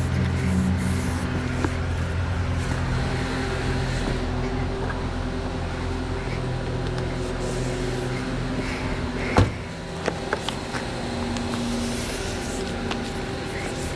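Steady mechanical hum with several low tones. About nine and a half seconds in there is one sharp click, followed a second later by a few lighter clicks as car trim is handled.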